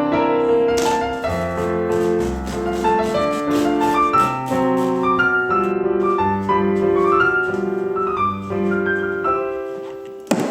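Background piano music: a slow melody of sustained notes with chords beneath.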